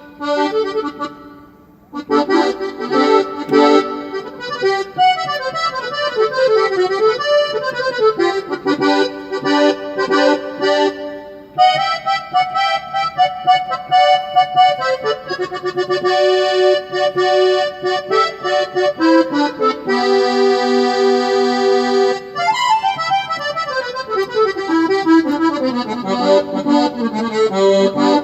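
Sampled accordion sound from a keyboard's organ bank, played as fast runs of notes going down and up with a held chord near the end. The playing starts about two seconds in.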